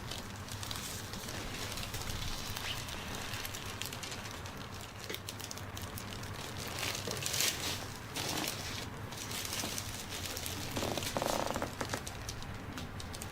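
Hands massaging a person's back, rubbing and kneading over skin and clothing with soft, irregular rustling.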